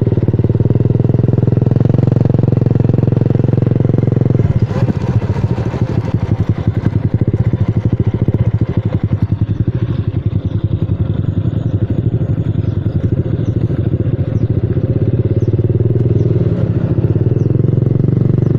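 Motorcycle engine running while riding, with wind buffeting the microphone. The engine note drops a little about four and a half seconds in, then runs on steadily.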